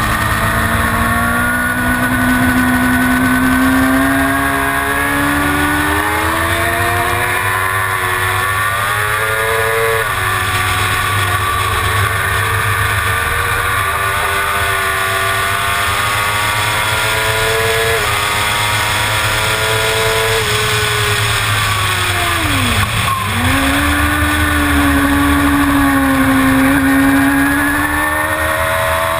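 Suzuki GSX-R750's inline-four engine at racing speed, its pitch climbing through the gears with a shift every few seconds, then dropping sharply about two-thirds of the way in before climbing again.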